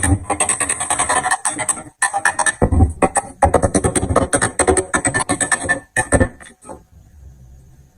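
Background electronic music with a busy percussive beat, cutting off abruptly about two-thirds of the way through, leaving only faint scattered sounds.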